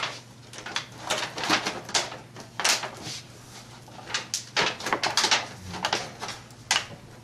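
Aluminium foil crinkling and disposable aluminium pans clattering as foil is pressed down over trays of barbecued meat: a run of irregular, sharp crackles.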